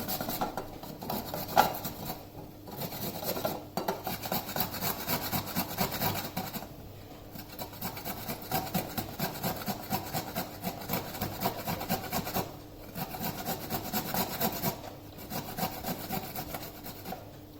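Fresh ginger root being grated by hand on a grater: a run of quick rasping strokes, broken by short pauses every few seconds.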